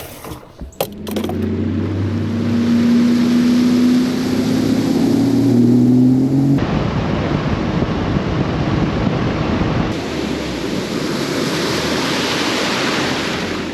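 Bass boat outboard motor running, its pitch climbing slightly, then a steady rush of wind and water as the boat runs at speed.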